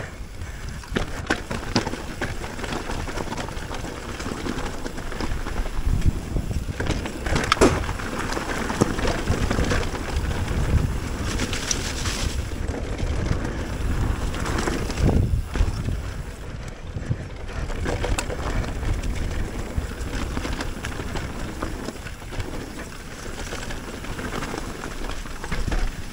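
Wind buffeting a mountain biker's action-camera microphone during a ride, with scattered knocks and rattles from the bike over the trail.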